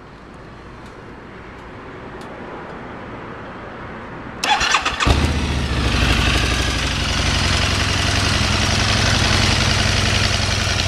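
2012 Harley-Davidson V-Rod Muscle's V-twin engine on its mostly stock exhaust, with a few holes punched in the pipe ends, being started: the starter cranks about four and a half seconds in, the engine catches within a second, and it settles into a steady idle.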